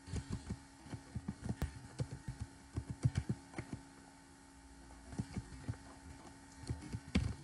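Typing on a computer keyboard: a quick run of keystrokes for the first few seconds, a pause of about a second, then more keys near the end. A faint steady hum runs underneath.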